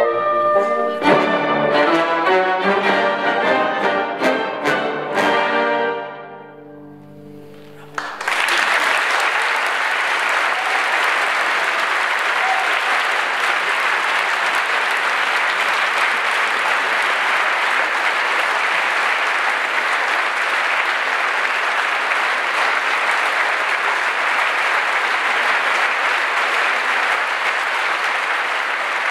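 A student symphony orchestra plays the closing bars of a piece, a run of short accented full-orchestra chords, and the last chord dies away into the hall's reverberation. About eight seconds in, the audience breaks into steady, sustained applause.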